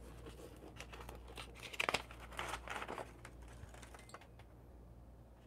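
Sheet of paper crinkling and rustling as it is picked up and folded into a chute, in crackly clusters that are loudest around two seconds in.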